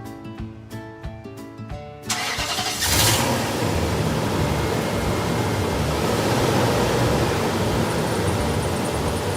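Background music for about two seconds, then a car engine starting and running steadily, with a surge about three seconds in as it catches.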